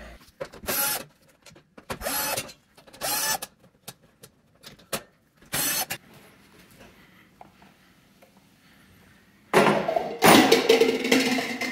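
Thin sheet-metal oven cover panel being slid out and handled: several short metallic scrapes, then from about two seconds before the end a louder, longer metal rattle and scrape as the panel is laid down on a plastic tool case.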